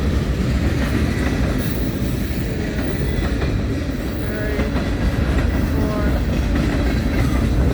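Freight cars of a long mixed freight train rolling past: a steady heavy rumble of steel wheels on the rails, with clickety-clack over the rail joints.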